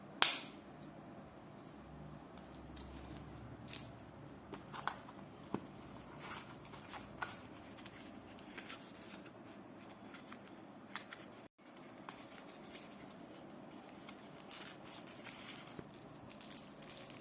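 Packaging of a pair of wireless earbuds being handled: scattered light clicks and soft rustles, with one sharp click at the very start.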